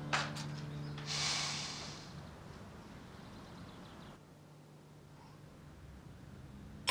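A man's sharp, breathy exhale through the nose, a snort or sigh, about a second in, over a low sustained music tone that fades out. Then faint room tone, with a light clink of tableware at the very end.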